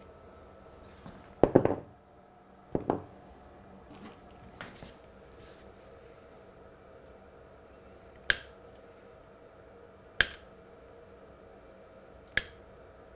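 Sharp clicks of small hand tools (fine pliers, then a scalpel blade) catching on the small tabs and plate of a Peco model railway point as the tabs are prised back. A quick cluster of clicks about a second and a half in and another near three seconds, then single clicks about every two seconds later on.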